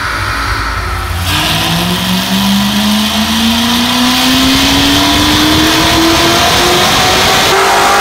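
Supercharged LS7 V8 of a 2007 Chevrolet Corvette Z06, breathing through long-tube headers, making a pull on a chassis dyno. A low rumble for about a second, then the revs climb steadily and the engine note rises and grows louder to the end.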